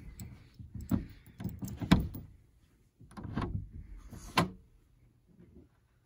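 Brass doorknob being turned and rattled, its latch clicking several times, with a sharp click about four seconds in.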